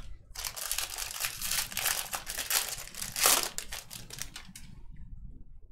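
Plastic wrapper of a Topps Series 1 baseball card pack crinkling and tearing as it is opened by hand, a dense run of crackles that is loudest a little past three seconds in and stops about four and a half seconds in.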